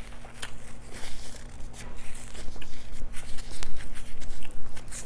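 Close-miked eating: chewing and mouth sounds, a run of short irregular clicks.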